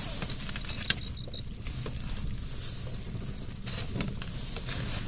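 Boat motor running steadily at low revs, with light clicks and knocks from the landing net as the landed sea trout is handled, and one sharp click about a second in.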